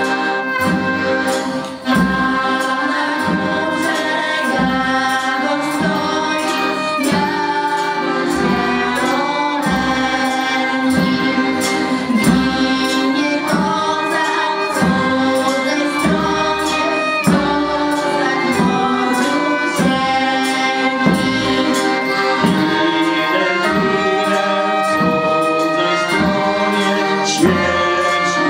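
Polish folk band of accordions and a trumpet playing a song, with female and group singing over a steady beat.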